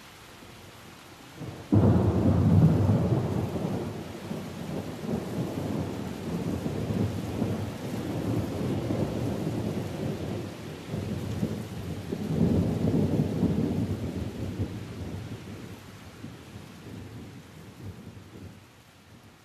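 Thunder over steady rain: a sudden loud clap about two seconds in that rolls on and slowly dies away, then a second, smaller roll about twelve seconds in, fading out near the end.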